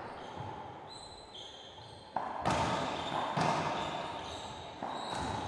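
Racquetball doubles rally on a hardwood court. Short squeaks of sneakers come first, then from about two seconds in the ball strikes racquets and the front wall with about three sharp cracks.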